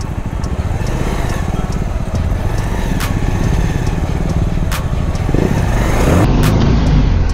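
Bajaj Pulsar 220F single-cylinder motorcycle engine running at low speed, with a few sharp clicks. Near the end it revs up and the pitch rises as the bike pulls away.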